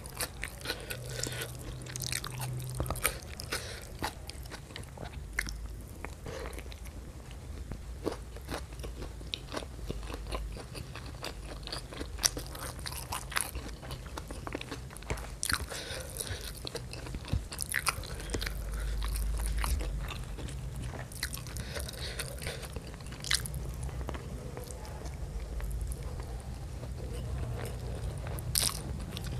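Close-miked eating sounds: chewing and mouth clicks while eating spicy shrimp and rice by hand, with sticky squishes of fingers working the rice. Many small sharp clicks run through it.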